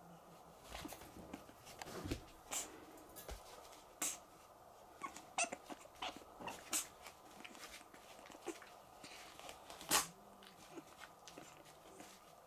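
Pug puppy moving about in a wire crate: scattered short clicks and knocks, the sharpest about ten seconds in, and a few brief whimpers around the middle.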